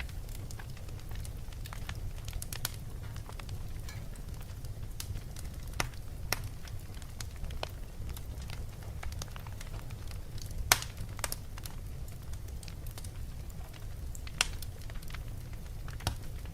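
Wood fire crackling in a fireplace: scattered sharp pops and ticks over a steady low rumble, with one loud pop about two-thirds of the way through.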